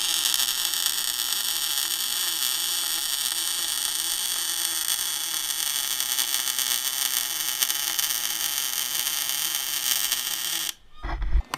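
Electric arc welding on the steel shelf frame: a steady buzzing crackle that stops suddenly near the end, followed by a brief low thump and a knock.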